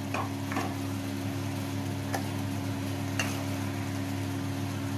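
A few light clinks of a spoon against a pan and plate as the okra curry is served, over a steady low hum.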